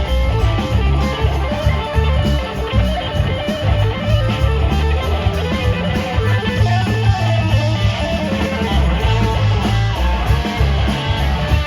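Live rock band playing an instrumental passage with no vocals: electric guitar lines over bass guitar and drums.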